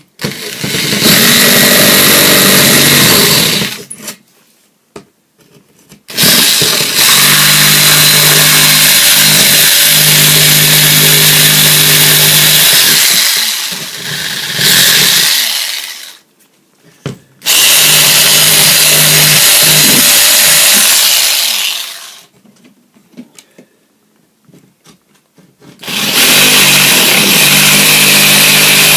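Handheld power saw cutting through the wooden lath behind plaster. The motor starts and stops four times, running several seconds each time, with the pitch shifting as the blade works the cut.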